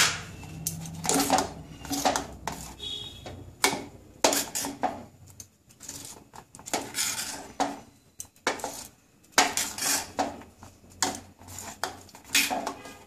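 Steel spoon scraping and clinking against the sides and bottom of a stainless steel saucepan as thick milk-and-rice firni is stirred, in quick irregular strokes. The stirring is kept up so the thickening milk does not catch on the bottom.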